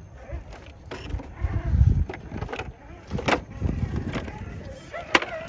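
Radio-controlled scale rock crawler working over the course: its drive runs in short surges, with sharp knocks and clatter as the truck climbs and drops on the obstacles.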